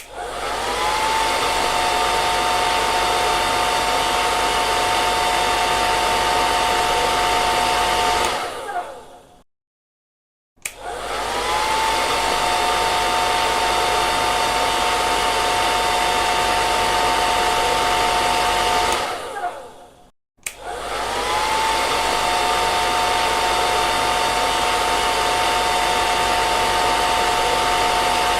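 Hand-held hair dryer switched on and off three times, each run lasting about nine seconds: the motor's whine rises as it spins up, then holds steady over the rush of blown air, and dies away when it is switched off, with a short silence between runs.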